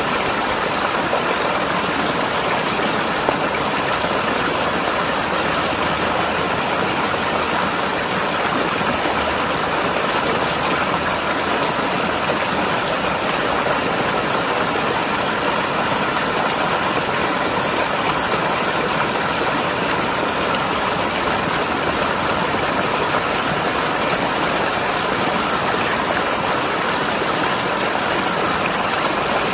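Mountain river rushing and gurgling over rocks, a steady unbroken sound of running water.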